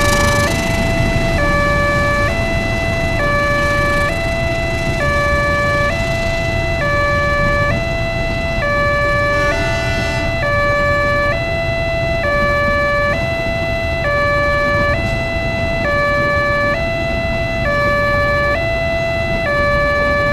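Electronic warning siren of a railway level crossing sounding a two-tone hi-lo alarm, switching back and forth between two pitches at a steady pace, which signals an approaching train. A low rumble runs under it.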